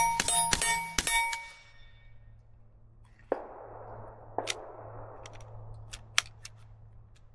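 Suppressed subsonic .22 LR shots from a TX22 pistol, several in quick succession in the first second, each ending in the ringing clang of a struck steel target. The ringing fades out within about a second. It is followed by a faint rustle and a few small clicks.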